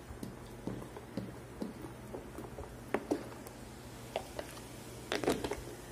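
Soda poured from a 2-litre plastic bottle into a plastic cup, fizzing in faint scattered ticks and crackles. A short cluster of louder clicks comes about five seconds in.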